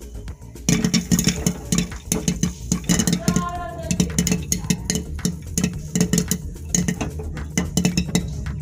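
Popcorn kernels popping inside a closed aluminium pressure cooker, a rapid, irregular crackle of sharp pops. The cooker is shaken on the gas burner, rattling the kernels.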